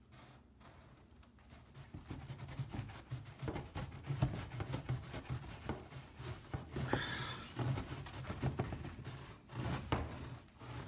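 Handling noise: rubbing and scuffing with many light clicks and a low rumble, growing louder about two seconds in.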